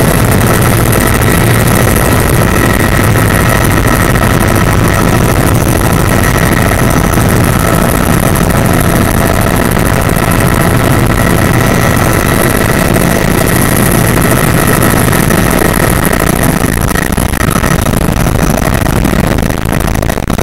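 Helicopter in flight, heard from inside the cabin: a loud, steady drone of engine and rotor with a constant high whine over a low hum.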